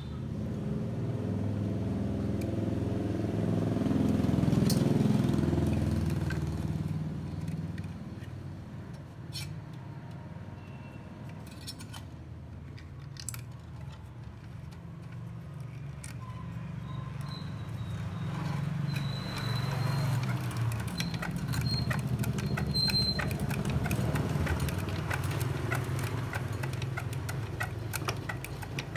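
Low engine rumble of a passing vehicle, loudest about five seconds in. In the second half a quick run of ticking and rattling comes from the stepped coil-winding former spinning as enamelled copper wire is wound onto it for a three-phase motor coil.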